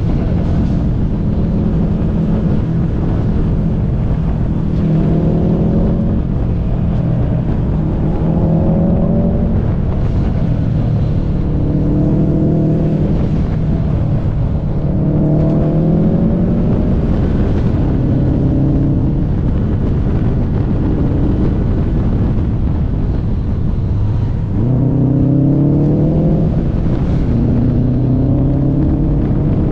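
Subaru WRX STI's turbocharged flat-four engine under hard driving, its pitch climbing and dropping every couple of seconds as it revs out and eases off between corners, with a steep climb after a dip about 24 seconds in. Heavy wind and road rush runs underneath.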